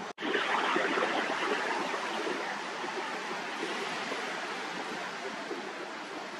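Surf washing on a sandy beach: a steady, even noise of breaking waves with no distinct strokes.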